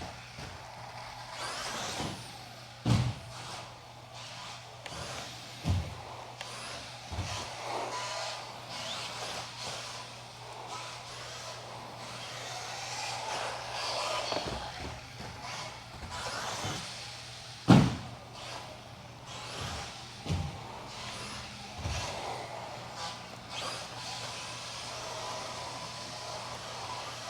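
Electric RC buggy (Associated RC10B6.4 with a Reedy 17.5 stock brushless motor) whirring around a racetrack, its motor and drivetrain rising and falling with throttle, with about six sharp thuds along the way, the loudest about two-thirds of the way through.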